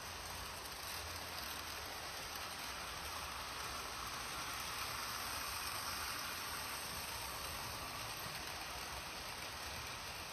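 Märklin model train running on metal M-track, a steady rushing rumble of wheels on the rails. It swells around the middle as the coaches pass close, then eases off.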